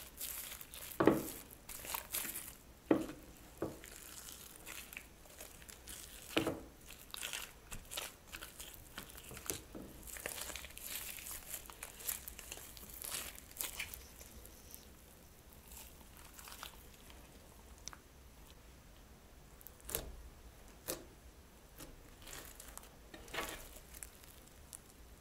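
Slime being worked by hand in plastic piping bags: the plastic crinkles and the sticky slime gives sharp crackles and pops. The crackling is busy for the first half, then thins out to a few scattered pops.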